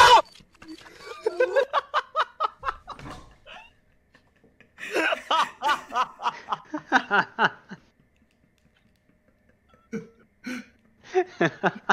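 A person laughing hard in fits: two long bouts of rapid breathy laughs, a short pause, then a few more laughs near the end.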